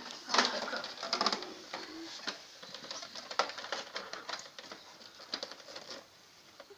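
Hard plastic parts of a Nerf Mega Mastodon blaster clicking and rattling as they are handled and fitted: a run of sharp irregular clicks that grows quieter near the end.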